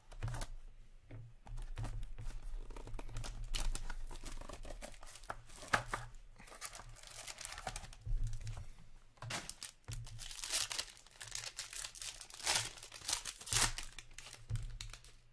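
Plastic shrink wrap on a box of hockey cards being slit and torn off, crinkling and crackling, as the cardboard box is opened and handled. The crinkling is louder in the second half.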